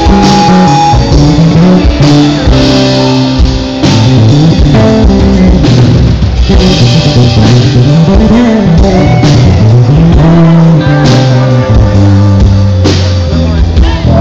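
Live band playing a worship song, with guitar and drum kit, loud and with a steady beat.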